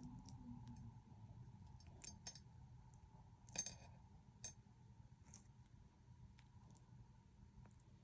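Near silence with a few faint clicks and clinks from a handbag and its metal hardware being handled, the loudest about halfway through.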